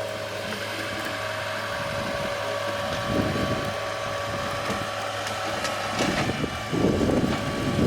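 Engine of a Pfanzelt Moritz fr 75 forestry machine running steadily, with a louder crackle of wood and brush breaking about three seconds in and again from about six seconds on.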